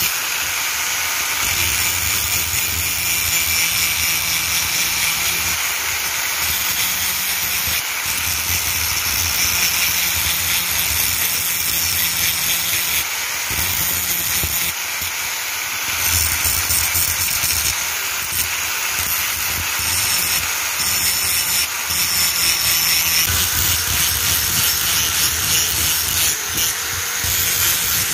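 Electric angle grinder with an abrasive disc grinding the steel head of a hammer: a steady, loud hiss of abrasion over the motor's hum, easing off briefly a few times as the pressure shifts.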